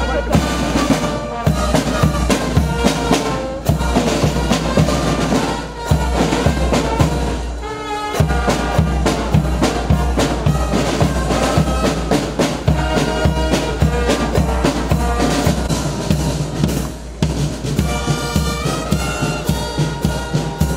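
Brass band playing: trumpets, trombones and saxophones over a steady beat of bass drum and drums.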